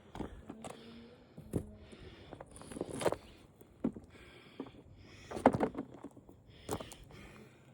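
Knocks and clatter of a sheet from a dismantled flat-screen TV being handled and set on a weighing scale: about half a dozen sharp knocks with rustling between them, the loudest about five and a half seconds in.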